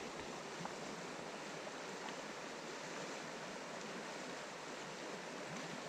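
Steady rush of a fast-flowing river current.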